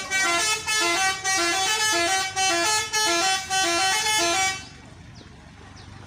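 Telolet 'basuri' melodic air horn on a tour bus playing a short repeating tune of alternating low and high notes, about two notes a second. It stops about four and a half seconds in.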